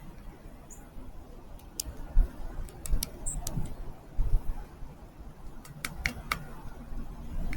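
A few brief, very high bird chip notes, with scattered sharp taps and clicks: a cluster about two seconds in and another around six seconds. A low rumble sits underneath.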